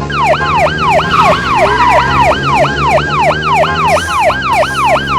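Police siren sounding in a fast yelp, about three swooping sweeps a second, starting abruptly over a steady background music bed.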